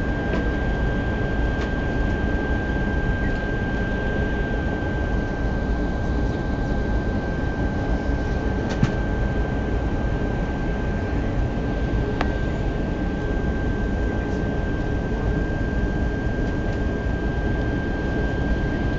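Steady aircraft cabin noise on approach: a deep rumble of engines and airflow with a thin high whine held throughout.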